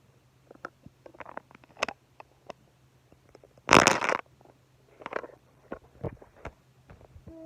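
Small clicks and knocks of toys being handled, with one loud, rough burst of noise lasting about half a second near the middle.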